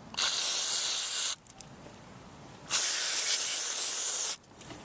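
Aerosol can of brake cleaner sprayed onto a motorcycle brake caliper in two hissing bursts of about a second and a half each, with a short pause between.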